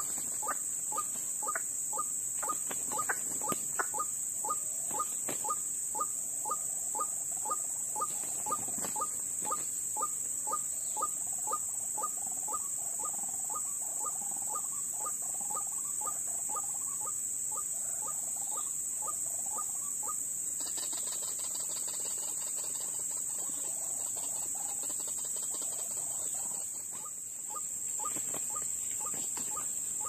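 White-breasted waterhen calling in a fast, even series of short notes, about two a second. The calls stop about two-thirds of the way through and start again near the end. A steady high-pitched insect drone runs underneath.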